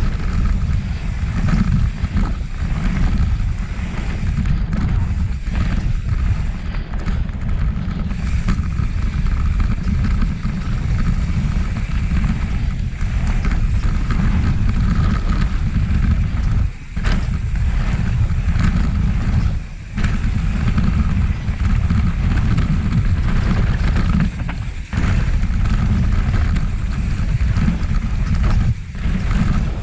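Wind buffeting an action camera's microphone during a fast mountain bike descent on a dirt trail, mixed with tyre and bike rattle noise. The noise is steady and loud, with a few brief dips.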